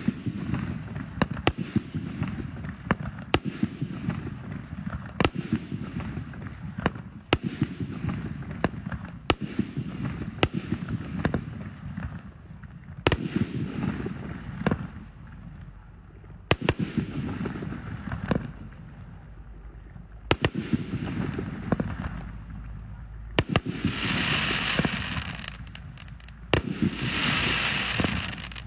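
A 2-inch, 48-shot consumer fireworks cake firing shot after shot: a sharp bang every one to two seconds, with a low rumble between them. Near the end comes a dense hiss lasting several seconds.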